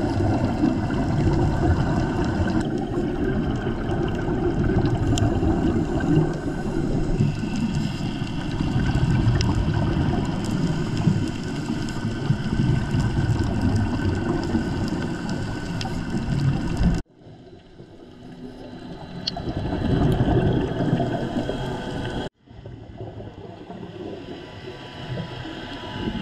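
Muffled underwater noise during a scuba dive: a steady rushing, gurgling wash of water, mostly low in pitch. It drops abruptly and changes character twice near the end.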